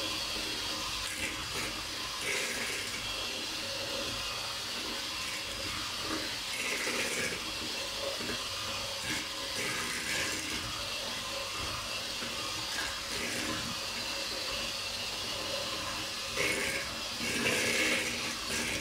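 Electric hand mixer running steadily, its beaters whisking eggs and sugar in a plastic bowl, with the grainy swish of sugar not yet dissolved. The mixer swells louder briefly near the end.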